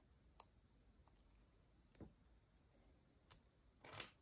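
Near silence with a few faint, short clicks from handling stiff paper pieces and small metal binder clips, the loudest about four seconds in.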